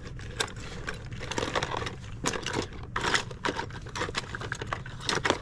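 Hands rummaging through a box of small loose toys and bits: rustling and crinkling, with many small clicks and knocks as items are picked up and shifted.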